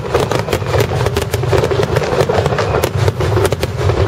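Aerial fireworks bursting, with a dense run of irregular sharp crackles from glittering crackling-star shells over a steady low rumble.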